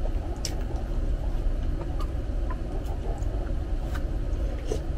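Eating at the table: soft chewing and mouth sounds with a few light clicks of a spoon, over a steady low hum.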